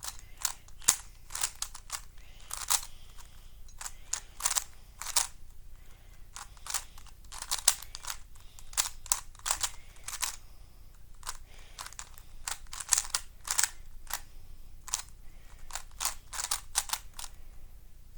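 Layers of a YJ 3x3 speedcube clacking as it is turned fast, in quick irregular runs of clicks with short pauses. The cube is a loud, sandy-feeling, blocky turner that locks up a lot.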